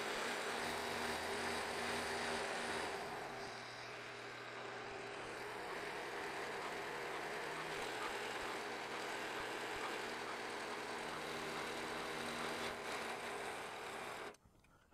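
Milling machine (a PM-727 mill) running steadily while a 7/16-inch end mill cuts a slot through a metal plate, stepped over 35 thousandths to widen the slot to half an inch. The sound stops abruptly near the end.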